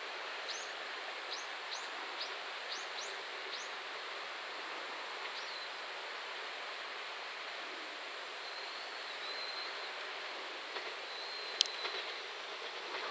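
Steady outdoor background noise with about eight short rising bird chirps in the first five seconds; a distant JR Shikoku KiHa 185 diesel railcar approaching is heard only faintly, with a sharp click near the end.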